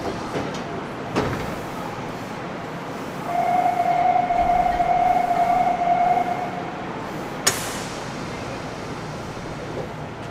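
Inside a Nagoya Municipal Subway 3050-series car standing at a station: a steady door-closing buzzer sounds for about three seconds, and a few seconds later the sliding doors bang shut as the train readies to depart.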